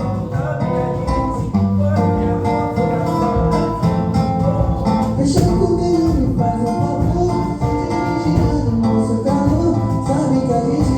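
Music: strummed acoustic guitar with a voice singing over it.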